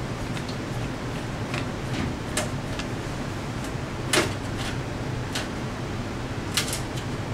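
Screwdriver working the power supply's mounting screws on a steel computer case, giving a dozen or so sharp metallic clicks and taps at irregular intervals, the loudest about four seconds in, over a steady low background noise.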